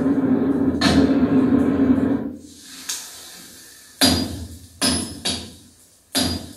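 Music with percussive hits. A dense, full stretch drops away about two seconds in, then sharp hits land a little under a second apart, each dying away.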